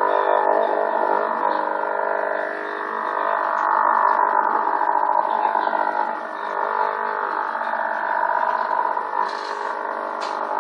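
Strange signal on the 40-metre shortwave band heard through a radio receiver: a dense, continuous mass of many tones that waver and slide up and down, squeezed into the receiver's narrow, tinny audio band. The uploader wonders whether it comes from HAARP.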